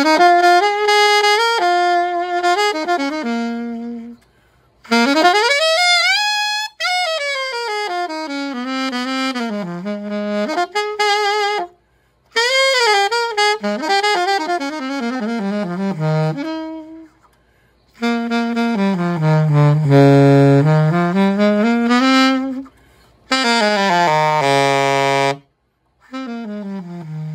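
Yamaha YAS-275 alto saxophone, freshly fitted with new pads, played solo in a slow melody: phrases of held notes and smooth slides between pitches, separated by short pauses.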